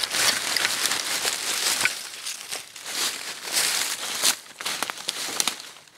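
Dry fallen leaves and twigs crunching and rustling in irregular surges, with a few sharp snaps.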